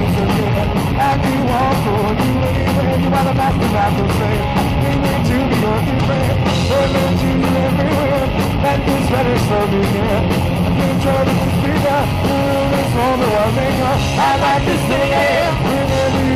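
Horror punk band playing loud and steady: distorted electric guitar, bass guitar and drum kit.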